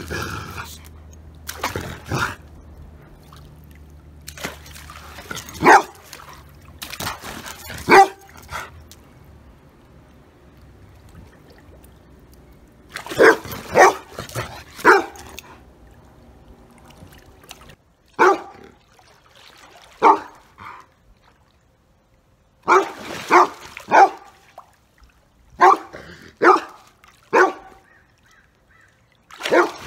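Large shaggy white dog barking: single barks and quick runs of two to four, with a short quiet spell about ten seconds in. The barks are warning barks at a person coming at it from the swimming pool.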